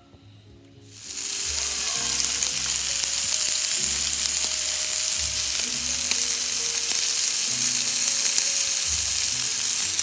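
Chunks of beef steak sizzling loudly as they sear on a hot grill plate over a portable gas stove, the sizzle starting about a second in.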